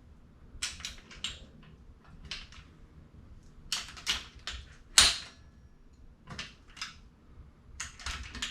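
A hand ratchet clicks in short runs of a few clicks each, about six runs in all, with one sharper, louder click about five seconds in. This is the final 45-degree angle-torque step on cylinder-head bolts.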